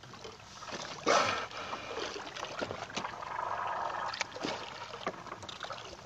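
Water sloshing and splashing beside a small boat as an Indo-Pacific humpback (pink) dolphin swims at the surface and dives, with a brief louder rush of water about a second in.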